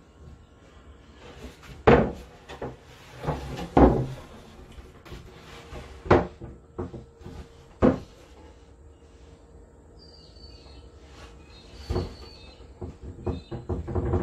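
Wooden boards being handled and set down: a series of sharp wooden knocks and thuds, loudest about two and four seconds in, with a cluster more near the end.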